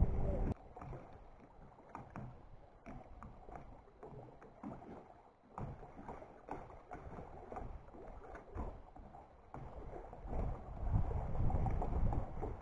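Faint choppy water lapping against a dock, with scattered soft knocks; it grows louder near the end.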